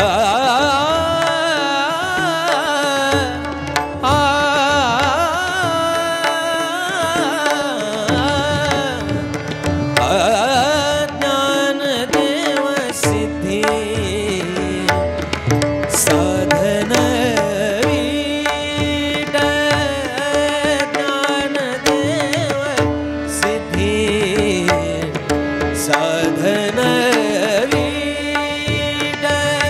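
Devotional abhang music: a voice singing a long, wavering, wordless ornamented passage over tabla strokes and a steady held drone note.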